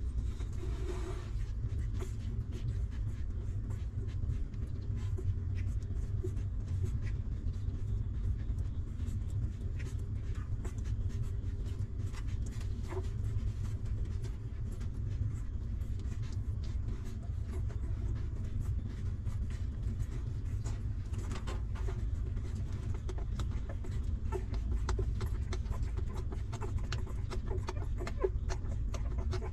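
Newborn puppies suckling at their mother: many small wet clicks and smacks over a steady low rumble.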